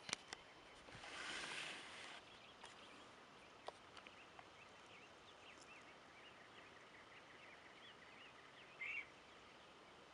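Faint dawn countryside ambience: small birds chirping quietly in the distance, with one louder call near the end. A couple of clicks come at the very start, and a short rush of noise about a second in.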